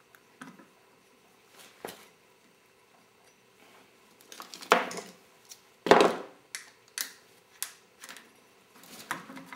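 Metal clanks and clicks as the clutch basket of a 1996 Yamaha YZF600R engine is wiggled back and forth and pulled out of the engine case, working its bearing loose. A few faint clicks, then two loud clanks about four and a half and six seconds in, followed by several lighter knocks.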